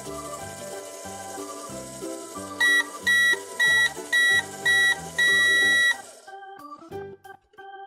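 Microwave timer beeping loudly over background music: five short high beeps and then one longer beep, the signal that the heating cycle is done.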